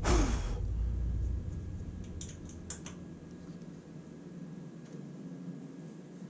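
Hex key tightening the Allen screws on a bandsaw's lower roller-guide bracket, with metal-on-metal handling. A brief scraping rustle at the start, then a few light metallic clicks a couple of seconds in as the key seats and turns.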